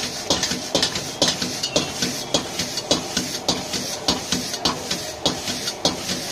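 A metal spatula strikes and scrapes a wok while noodles are stir-fried and tossed, about two clanks a second, over the steady hiss of a high gas flame.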